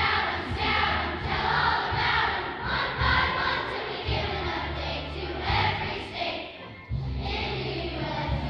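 Children's choir singing with instrumental accompaniment, with a brief dip between phrases about two-thirds of the way through.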